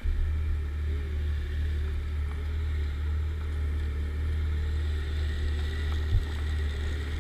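Snowmobile engine idling with a steady low drone, and one short knock about six seconds in.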